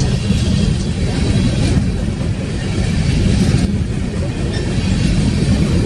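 BNSF coal train rolling past: a steady, heavy low-pitched rumble of wheels on rail, with a fainter hiss of rail noise above it.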